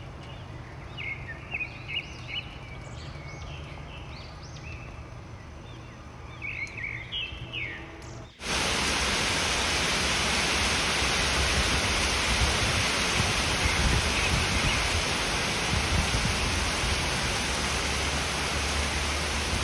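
A quiet stretch with a run of short high chirps, then, about eight seconds in, a sudden switch to heavy rain pouring steadily onto leafy trees.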